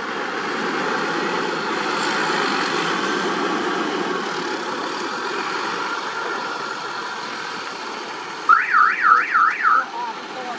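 Heavy dump truck's diesel engine running steadily on a construction site. About eight seconds in, a loud electronic warbling alarm sounds for just over a second: four quick rising-and-falling sweeps.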